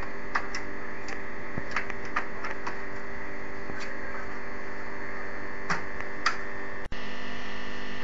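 Steady electrical hum, with a scattering of small clicks and taps as a PCI network card is handled and pressed into its motherboard slot. The sound drops out for an instant about seven seconds in.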